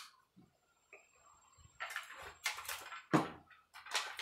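Thin strips of metal cut from tin cans being handled: a few short crinkles and rustles starting about two seconds in, with one sharper click about three seconds in.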